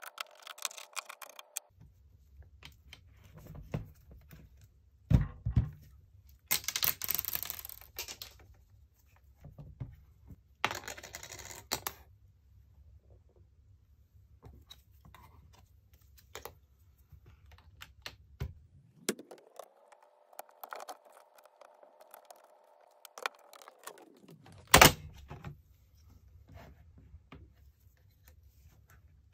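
A small electric screwdriver whirring with a steady whine at the start. About two-thirds of the way through it runs again, spinning up, holding for about four seconds and winding down. In between come clicks, knocks and two stretches of scraping as the plastic laptop body is handled and turned over on the work mat, with a loud knock as the second screwdriver run ends.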